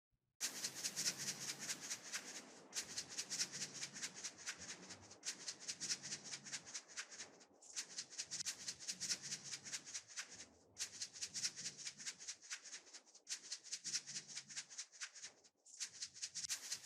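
Gritty, rattling scrape of sand or fine gravel being worked, in stretches of a few seconds broken by short pauses.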